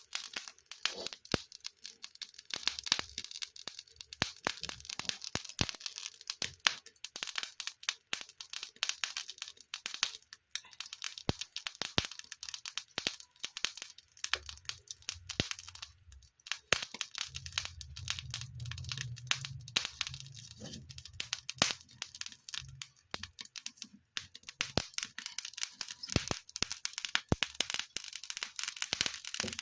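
An open fire crackling: many sharp snaps and pops over a steady hiss, with a brief low rumble a little past the middle.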